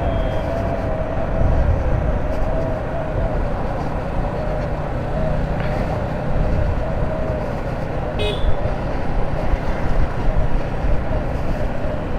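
Motorcycle riding noise: the engine running steadily under a low rumble of wind and road noise, with a short vehicle horn toot about eight seconds in.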